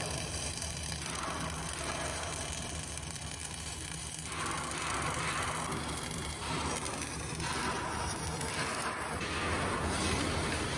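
CO2 MIG welding arc burning steadily during a vertical-up (3G) weld pass, a continuous noise that swells in stretches through the second half.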